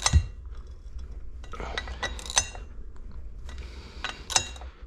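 Hand wrench and socket tightening water pump pulley bolts, with a few sharp metal clinks that ring briefly, the loudest at the start and about four seconds in.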